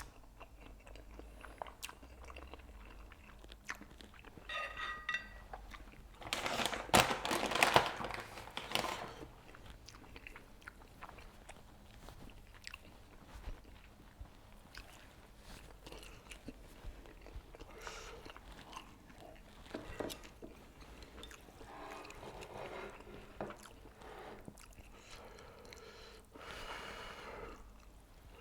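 A person eating instant noodles, Buldak fire noodles mixed with Jjapaghetti: chewing and mouth sounds. The loudest stretch comes about seven seconds in and lasts a couple of seconds.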